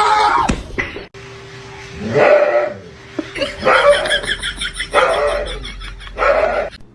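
A dog barking in quick repeated calls, strongest through the second half.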